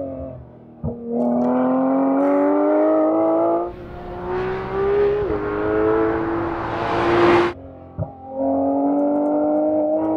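2018 Porsche 911 GT3's naturally aspirated four-litre flat-six accelerating hard, its pitch climbing in several runs broken by drops at the gear changes. One run cuts off abruptly about seven and a half seconds in.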